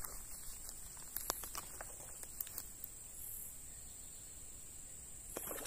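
Faint outdoor ambience: a steady high-pitched insect drone, with scattered small clicks and ticks in the first few seconds and a short cluster of them near the end.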